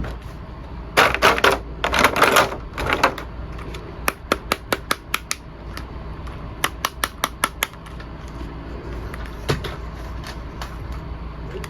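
Plastic toy and packaging being handled: a few seconds of crackly crinkling, then two runs of quick sharp clicks, about five a second.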